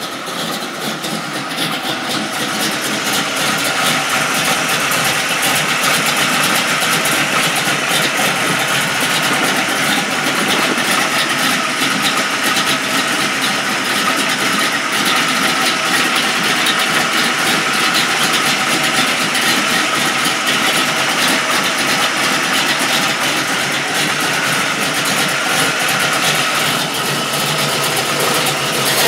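A 355 cubic-inch small-block Chevy V8 in a 1984 Chevrolet C-10 running steadily at idle, getting louder over the first few seconds.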